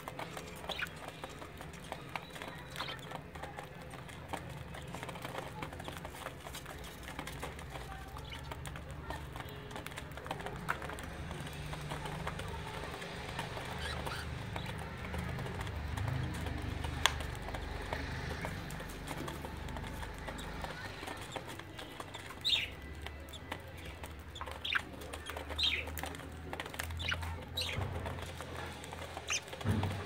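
Budgies giving short chirps several times in the last third, over a steady low rumble with faint scratching clicks.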